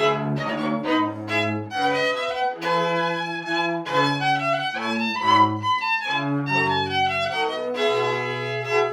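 Young string ensemble playing a tune: violins carry the melody in held, bowed notes over lower string notes that change about every half second.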